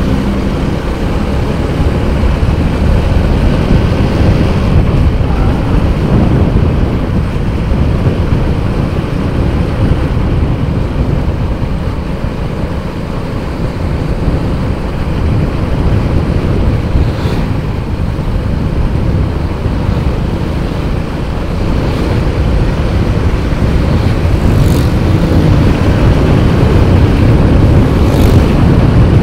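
Wind buffeting the microphone of a moving motorcycle, mixed with the motorbike's running engine and road noise, a little louder near the end.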